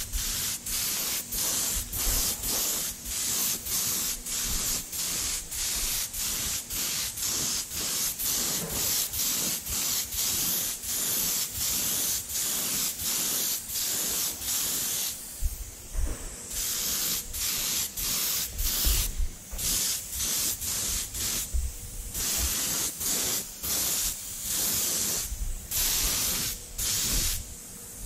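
Gravity-feed paint spray gun hissing in many short bursts, about two a second, with a pause of a second or so near the middle, as it lays a light first coat of red paint on a brake caliper.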